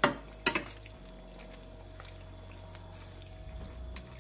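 A metal spoon knocks twice sharply against a stainless steel pot, then stirs fried eggplant slices through thick tomato sauce with soft, wet squelching.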